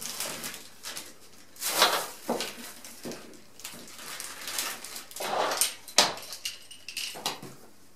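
Plastic packaging bags rustling and crinkling in irregular bursts as small parts are handled and pulled out of them, with a sharp click about six seconds in.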